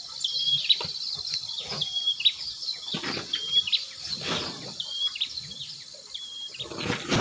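A bird repeats a short high whistled note ending in a quick upward flick, about every second and a half, over a steady high insect hiss. Several louder rustling crackles come and go among the calls.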